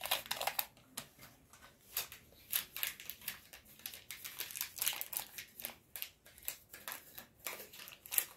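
Small plastic toy pieces and their wrapping being handled: irregular light clicks, taps and crinkling, with no steady tone.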